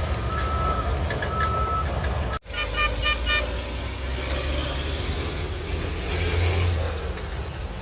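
Heavy earthmoving machine's diesel engine running steadily, with a back-up alarm beeping about once a second at first. After a brief break, a quick run of about five short horn toots sounds, and the engine grows a little louder near the end.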